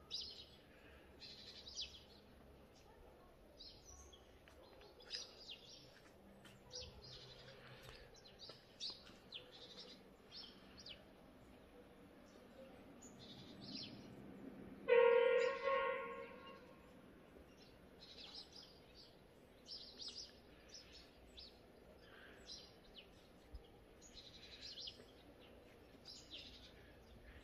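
Small birds chirping in short, scattered calls over a quiet background. About halfway through comes one louder pitched call, lasting about a second.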